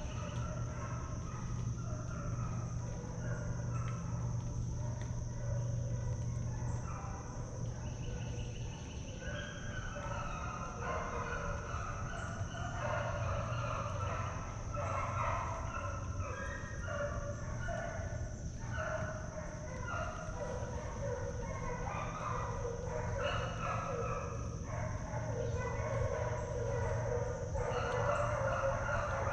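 A pack of deer hounds baying on a running deer's trail: broken, rising and falling calls, thin at first and fuller and more continuous from about a third of the way in.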